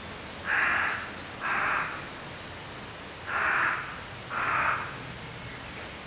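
A crow cawing four times, in two pairs of harsh calls, over a steady hiss.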